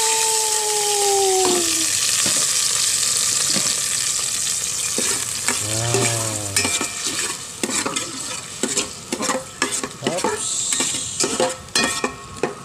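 Marinade sizzling loudly in a hot aluminium rice-cooker pot, slowly dying down, with a brief whistle that trails off about a second and a half in. From about five seconds in, a spoon stirs and scrapes against the pot in quick irregular clicks.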